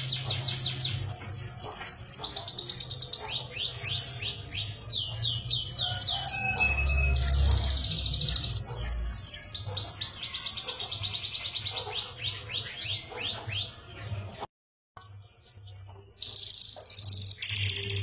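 Domestic canary singing a long rolling song: fast trills of rapidly repeated, high, down-sweeping notes, changing from one roll to the next, with a half-second break about two-thirds of the way through. A low hum runs underneath.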